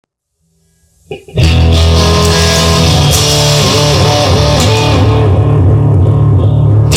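Rock music instrumental intro with electric guitar and bass guitar, starting after about a second of near silence and then playing loud and steady.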